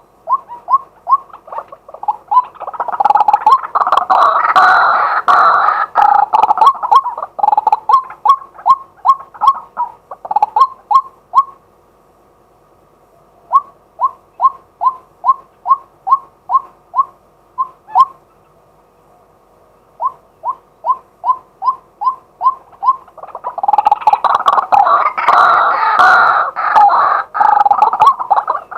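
Male white-breasted waterhen calling: a run of short, repeated 'kwak' notes, about two a second. Twice the calls swell into a louder, dense stretch of croaking calls, once early and once near the end, with brief pauses in between.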